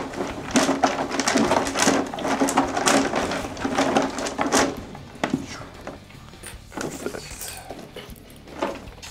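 Paper entry slips tumbling and rustling inside a clear plastic drawing drum as it is spun by hand. The churning stops about five seconds in, leaving a few scattered clicks and knocks.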